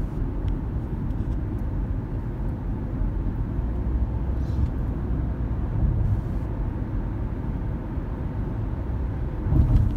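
Steady low road and engine noise inside the cabin of a moving car, with a brief louder low rumble near the end.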